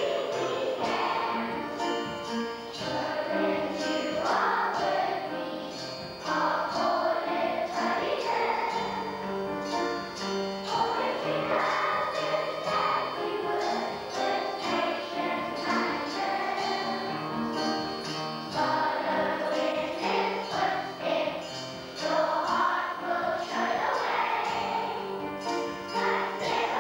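A children's choir singing a song.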